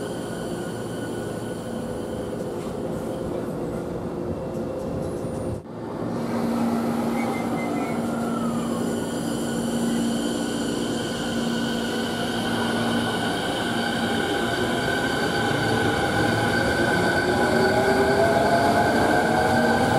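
Electric train sounds at a station: a steady running hum that breaks off abruptly about five and a half seconds in, then a steady tone, and from about three quarters of the way through a whine rising in pitch as a train's traction motors accelerate.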